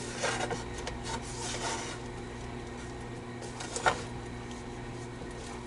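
Spoon stirring and scraping thick, balled-up homemade play dough in a pan, as intermittent rubbing and scraping sounds over a steady low hum, with one brief louder scrape or knock about four seconds in.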